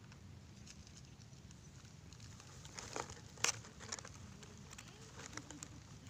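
Low steady outdoor rumble with a few short sharp clicks and crackles near the middle, the loudest about three and a half seconds in.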